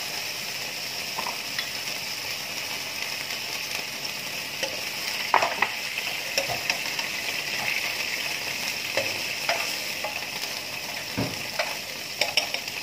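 Food sizzling in a frying pan while a spatula stirs it, with scattered clicks and scrapes of the spatula against the pan, the loudest about five seconds in and a quick few near the end.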